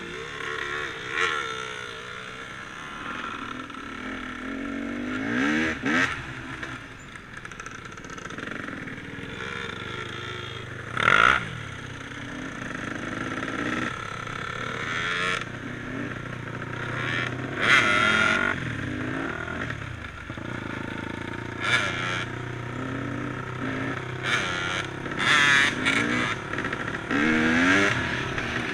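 Dirt bike engine revving up and down as it is ridden, heard from the rider's helmet, with short loud bursts of noise every few seconds.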